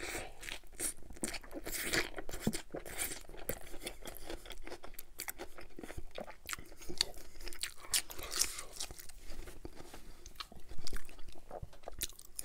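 Close-up chewing of a bite of burger with crisp lettuce: a steady run of wet smacks and crunchy clicks from the mouth, without pause.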